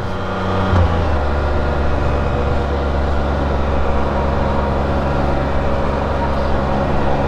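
A 2020 Can-Am Spyder RT Limited's Rotax 1330 ACE three-cylinder engine running under way, heard from on board. The engine note drops about a second in, then holds steady.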